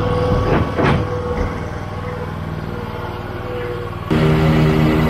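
Walker B27i riding mower's engine running as the mower drives down a trailer ramp, with two brief noises about a second in. About four seconds in the sound jumps abruptly louder to a steadier engine note.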